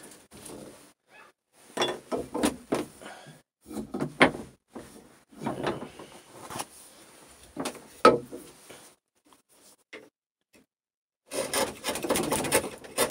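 Hand chisel paring and scraping birch, with scattered knocks and rubs of wood and tools, two sharp knocks about four and eight seconds in, and a dense run of rasping paring cuts near the end.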